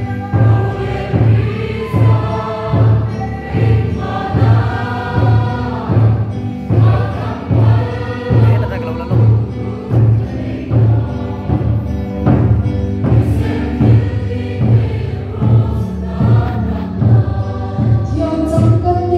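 A church congregation singing a hymn together, with a large drum struck in a steady beat, about three strokes every two seconds.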